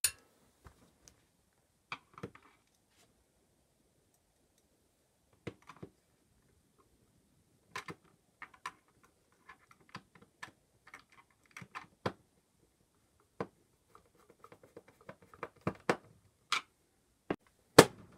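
Scattered clicks and knocks from a Roland PR-100 sequencer's case being handled on a wooden workbench. They come more often and louder in the last few seconds, as the unit is turned over and set down.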